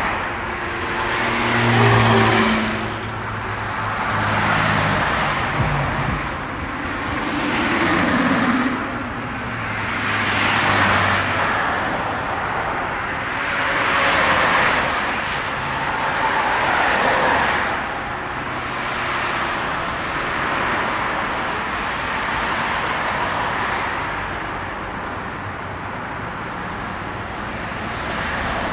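Road traffic: cars passing one after another, each swelling and fading within a few seconds, with engine hum under the tyre noise of the first few. After about eighteen seconds the traffic settles into a steadier, slightly quieter flow.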